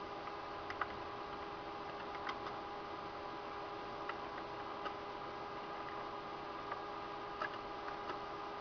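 Steady hum with a few fixed tones from a running desktop PC, with scattered light clicks at irregular intervals.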